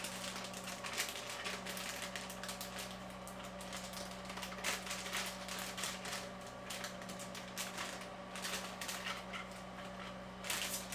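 Anti-static (ESD) plastic bag being torn open and handled, giving an irregular run of crinkles and crackles. Under it runs the steady hum of a solder-fume extractor fan.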